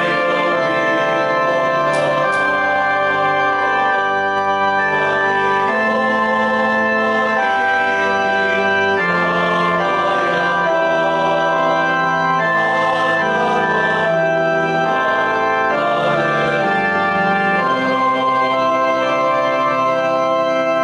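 Organ playing slow, sustained chords, the held notes changing every second or two.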